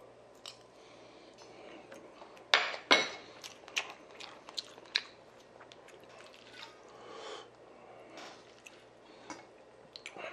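A person eating close to the microphone: wet chewing and smacking on a mouthful of bibimbap, with a scatter of short sharp clicks, the loudest two about two and a half to three seconds in.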